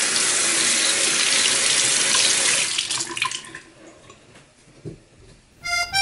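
Water running from a tap into a bathroom sink, a steady rush that dies away about three seconds in.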